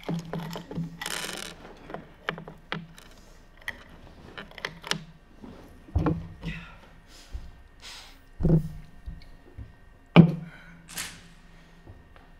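Scattered knocks, clicks and rustling of an actor handling bedding and props on a small stage, with a rustle about a second in and sharp thumps about six, eight and a half and ten seconds in, the one at ten seconds the loudest. A short swish follows near the end.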